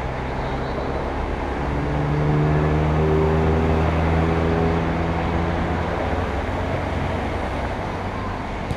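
A motor vehicle's engine droning steadily as it passes, swelling about two seconds in and fading away toward the end.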